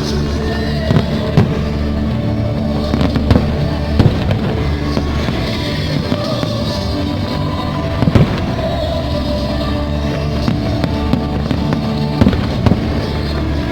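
Fireworks bursting over a loud music soundtrack, with sharp bangs scattered through and the heaviest about a third and two thirds of the way in.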